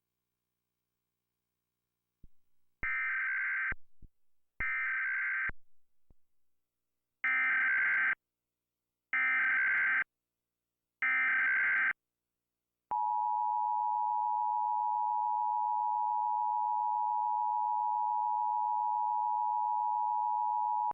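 Emergency Alert System test tones. After a few faint clicks come five short bursts of buzzy digital data tones, each about a second long: the SAME header that encodes the alert. A little past halfway the steady two-tone EAS attention signal (853 and 960 Hz) begins and holds unbroken.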